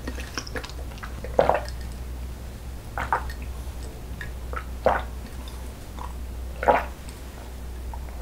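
A person gulping a drink from a glass, close to the microphone: four loud swallows, one every second and a half to two seconds.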